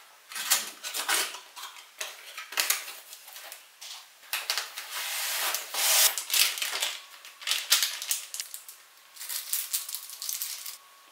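Packaging being handled during an unboxing: a cardboard box opened, then foam packing and plastic bags rustling and crinkling in irregular bursts, with a few light knocks.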